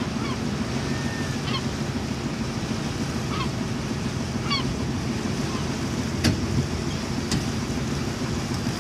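Gulls giving short cries several times over a steady low rumble, with two sharp knocks about six and seven seconds in.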